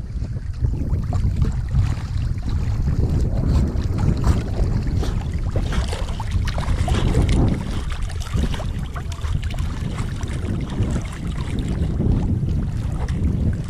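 Choppy river water sloshing and splashing right at a microphone held at the water's surface, with dogs paddling close by and wind rumbling on the microphone.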